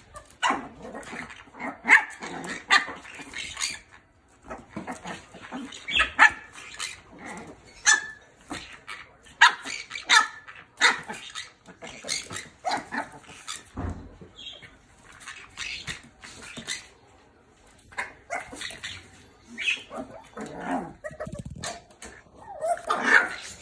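Chihuahua play-barking in many short, rapid yaps, with a couple of brief pauses.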